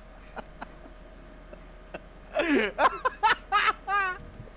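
A man laughing in a string of short chuckling bursts that starts about halfway through and stops shortly before the end, after a couple of quiet seconds with a few faint clicks.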